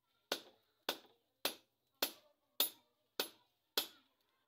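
Hammer blows on a red-hot steel bolo blade on a small anvil during forging: eight evenly spaced strikes, about one every 0.6 seconds, each a sharp metallic clang with a short ring.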